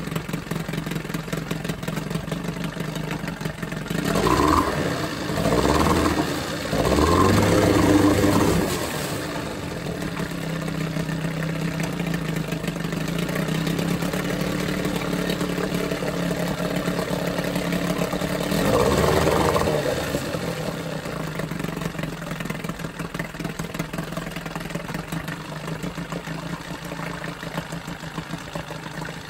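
Johnson 9.9 two-stroke outboard motor running on its freshly rebuilt carburetor, lower unit in a tub of water, idling steadily. It is revved up briefly three times about four to eight seconds in and once more about eighteen seconds in, each time settling back to idle.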